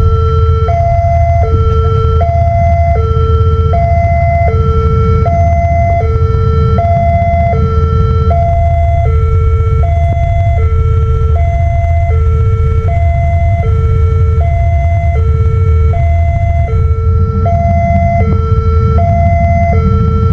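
Railway level-crossing warning siren from a pole-mounted horn loudspeaker, sounding an even two-tone high-low alternation, each tone held about three quarters of a second, repeating steadily: the signal that the crossing is closed for an approaching train. A steady low rumble runs underneath.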